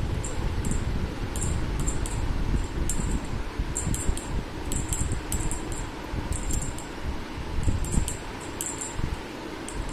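A small jingle bell on a dangled feather cat toy jingles in short, irregular shakes, over a steady low rumble.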